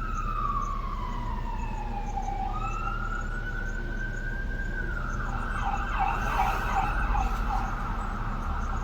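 Emergency vehicle siren sounding: a slow wail that falls, rises and holds, then switches about halfway through to a fast yelping warble, over a steady low rumble.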